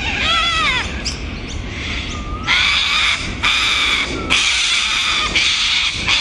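Little corellas (short-billed corellas) calling: a wavering squawk at the start, then a run of harsh screeches, about one a second, from about two and a half seconds in.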